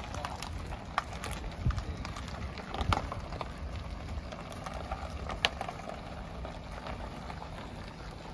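Footsteps crunching on a gravel driveway, with a few sharper clicks about 1, 3 and 5.5 seconds in, over a steady low rumble.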